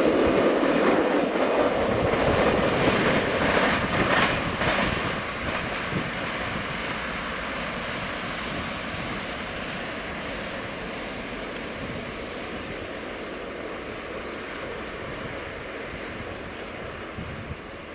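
Freight train rolling away, with wheels clattering over rail joints and points a few seconds in, its rumble then fading steadily as it recedes.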